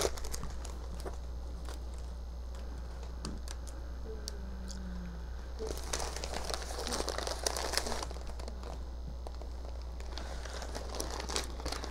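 Paper stuffing and wrapping on a new leather tote crinkling as the bag is handled: faint scattered crackles, louder for a couple of seconds in the middle.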